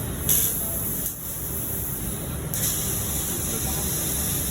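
Steady hiss of a CNC cutting torch as it cuts, with a brief louder rush of hiss just after the start and again past halfway.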